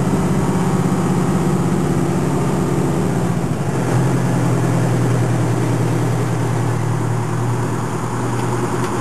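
Fire engine running, heard from inside its cab: a steady low engine hum that drops in pitch about four seconds in as the truck slows.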